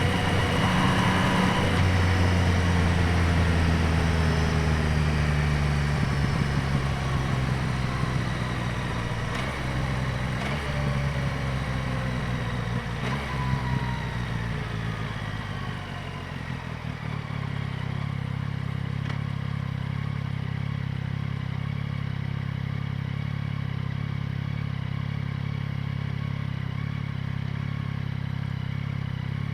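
2025 Yamaha MT-09's three-cylinder engine, miked at the air box and exhaust. It runs at higher revs with its pitch sliding down over the first half, then settles to a steady, quieter idle about seventeen seconds in.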